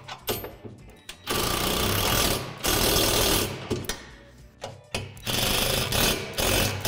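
Cordless impact driver with a socket running bolts tight into a steel basketball backboard frame. It goes in bursts: two runs of about a second each starting just over a second in, and another from about five seconds in. Light clicks of hardware being handled come first.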